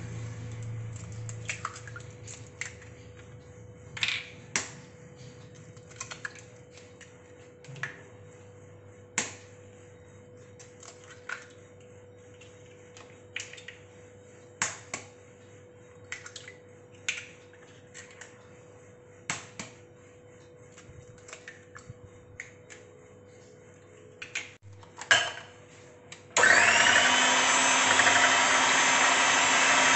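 Eggs being cracked into a glass bowl: scattered, irregular sharp taps and clicks of shell on glass and counter. Near the end an electric hand mixer switches on and runs steadily, beating the eggs, much louder than the cracking.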